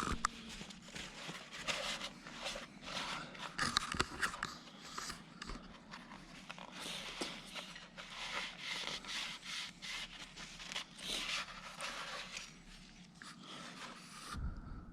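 Metal engine parts being handled: irregular light scraping, clicking and clinking as a connecting-rod bearing cap is removed to inspect the bearing for signs of overheating. A faint steady low hum runs underneath.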